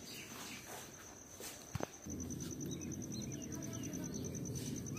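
Open wood fire burning under a pot in a brick stove, a steady low rumble that starts about two seconds in, after a few faint taps and a sharp click.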